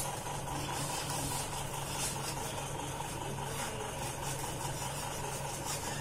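Steady low hum, with faint rubbing of a steel ladle pressing tamarind and jaggery pulp through a steel mesh strainer.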